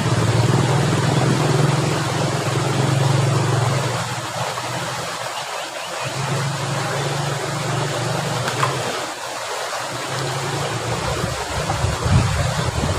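Water running steadily through an irrigation channel, with a low motor hum over it that fades about four seconds in, comes back briefly, then drops away.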